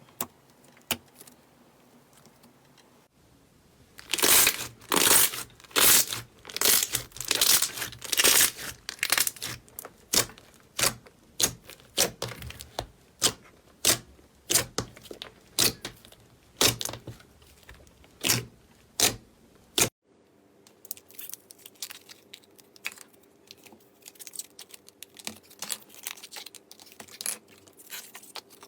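Slime being squeezed and pressed by hand: a run of sharp, crackling squishes about two a second. After a sudden cut there are softer, quicker crackles.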